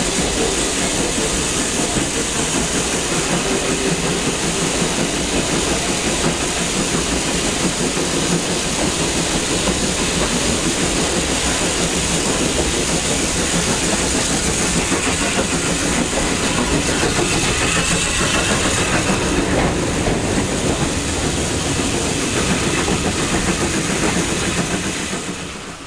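Steam-hauled heritage train running, heard from an open carriage window: a steady rumble of the coach wheels on the track with a constant hiss over it. It drops away suddenly near the end.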